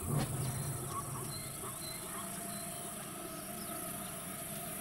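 Savanna ambience: small birds chirping and whistling on and off over a steady insect hum, with a brief low rumble right at the start.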